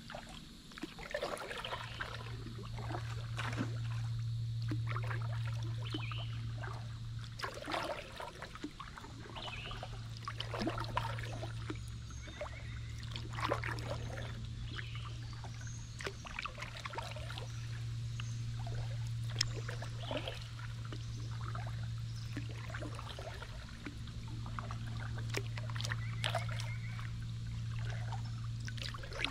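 Water splashing and trickling around a kayak moving along a river, in irregular strokes, over a steady low hum that drops out briefly a few times.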